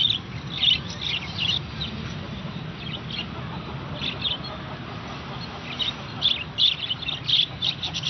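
Caged budgerigars and other small birds chirping: short high chirps in scattered clusters, sparse in the middle and busier near the end.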